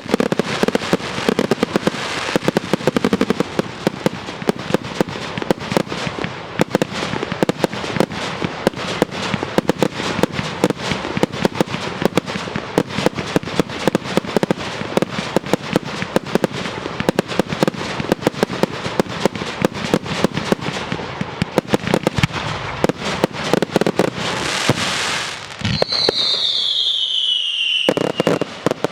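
Fireworks display: a dense, continuous barrage of rapid bangs and crackling shells. Near the end the barrage drops away and a falling whistle sounds, followed by a few last bangs.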